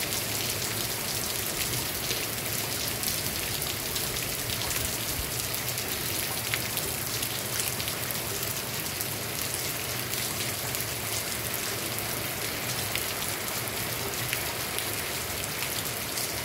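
Heavy rain falling steadily, with water running off the edge of a corrugated roof overhead and fine patter of drops.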